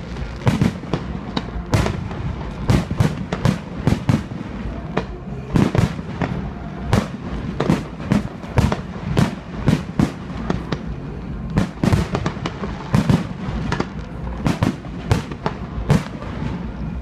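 Aerial firework shells bursting in a rapid, uneven barrage, about two sharp bangs a second.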